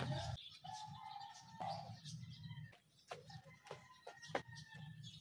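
Faint calls of birds, with clucking like backyard chickens and short chirps scattered through. A low rumble stops about half a second in.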